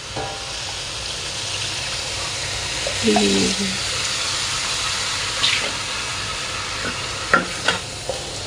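Seasoning sauce sizzling steadily in a hot pan just after a little water has been poured in and stirred, with two sharp taps of a utensil on the pan near the end.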